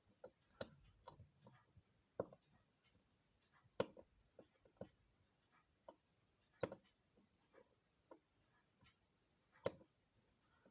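Irregular small clicks and taps from a wristwatch and small tools being handled on a bench, a few louder than the rest about four, six and a half and nine and a half seconds in.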